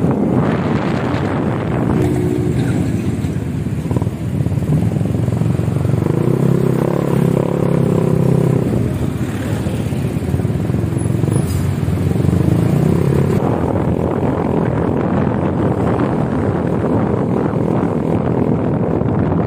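Wind rushing over the microphone and a motorcycle engine running while riding through traffic; an engine note grows louder for a few seconds around the middle.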